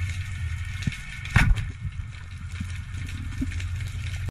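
Underwater ambience: a steady low rumble with a faint high hiss, and one loud, short knock about a second and a half in.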